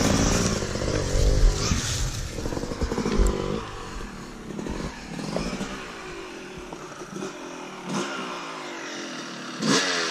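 Two-stroke dirt bike engine revving up and down as it rides through brush, then running more quietly at low revs. A few short knocks near the end.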